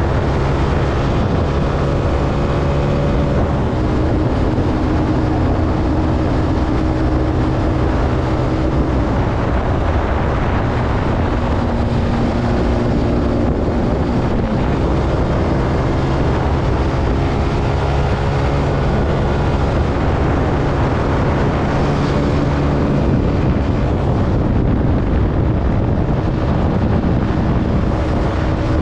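Zontes C125 motorcycle engine running while riding, its pitch shifting a little up and down with the throttle, with wind noise over it.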